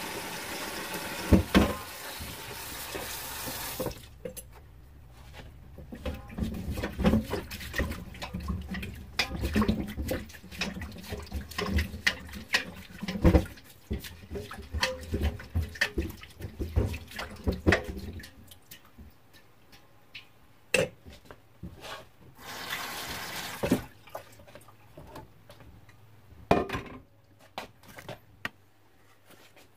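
Kitchen tap running into a sink as a sweet potato is washed. The tap shuts off after about four seconds. A long run of knocks, clunks and rubbing follows, and the tap runs again briefly near the end.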